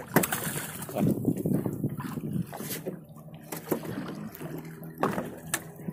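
Water splashing against a small boat's hull as a hooked tuna thrashes at the surface on a handline, with several sharp knocks.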